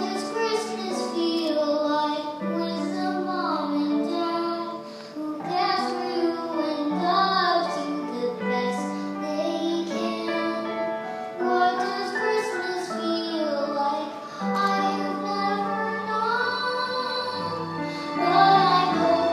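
A child singing a song with long held notes over a sustained instrumental accompaniment.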